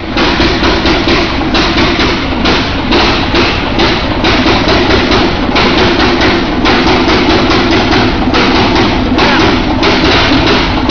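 Ajax DPC-600 600 hp integral gas engine-compressor, a slow-speed two-stroke, running with no exhaust or cooler silencing: a loud, rapid pulsing beat over a steady low drone.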